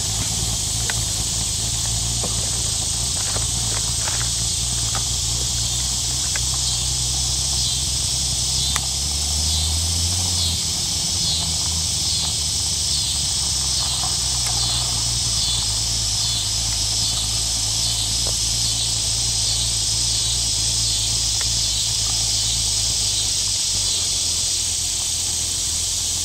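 A chorus of insects calling: a high buzz that pulses about once a second. Under it is the low, steady hum of the 1980 Ford van's 300 cubic-inch straight-six, running as the van drives off down the track. The hum shifts in pitch about ten seconds in.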